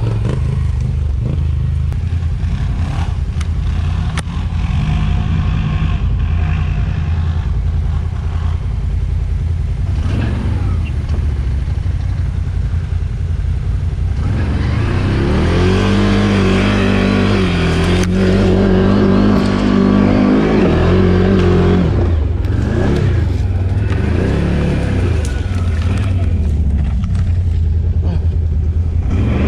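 An ATV engine under load, revving up and down as the quad climbs an off-road slope. It is loudest in the middle of the stretch, where the revs rise and fall several times.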